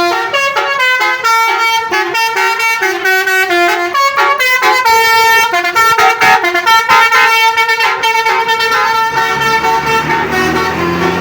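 Basuri telolet horn on a Wijaya Trans tour bus playing a tune of quick, stepping notes. A low hum comes in near the end.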